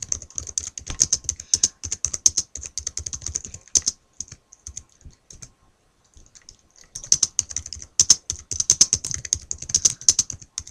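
Typing on a computer keyboard: quick runs of keystrokes, stopping for about three seconds midway, then starting again.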